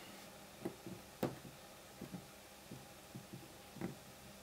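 Faint, scattered light clicks and taps of a precision screwdriver and tiny screws being handled and driven into an iPod Video's case, about six small ticks, the clearest about a second in.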